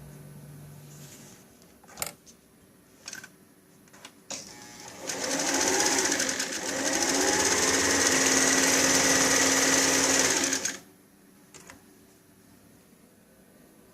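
Singer 288 sewing machine: a few single clicks, then the machine runs for about six seconds, easing briefly soon after it starts, and stops.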